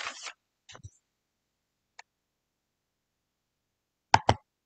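A short rustling noise right at the start, then near silence with one faint tick, then two sharp clicks in quick succession near the end.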